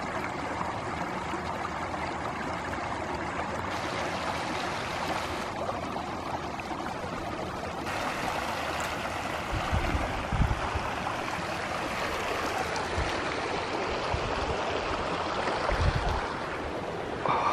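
Shallow, clear mountain creek running over rocks: a steady babble of flowing water. A few short low thumps come through around the middle and again near the end.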